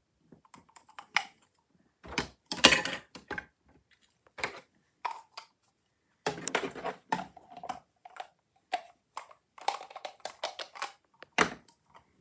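Hard plastic toy fruit pieces rattling in a plastic cup and clattering into the plastic jar of a toy blender, in several short bursts of clicks and knocks with pauses between them.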